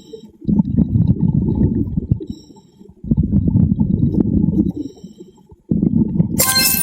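Scuba diver breathing through a regulator: a thin hiss of inhalation, then a long rumble of exhaled bubbles, three breaths in turn. A brief sharp high-pitched sound near the end.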